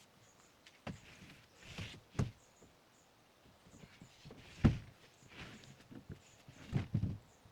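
Slow, uneven footsteps on forest ground, with scattered thuds and rustles; the heaviest thud comes about four and a half seconds in.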